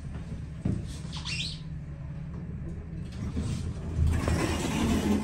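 Elevator car in motion with a steady low hum and a brief high squeak about a second in. A louder rushing noise comes in about four seconds in as the doors open.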